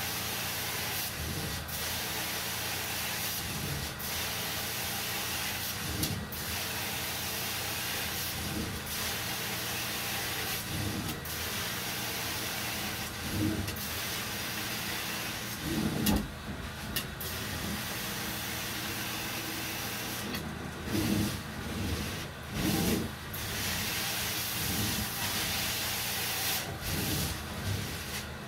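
Carpet cleaning extraction machine running steadily, a constant vacuum hiss, with a few louder low bumps in the second half.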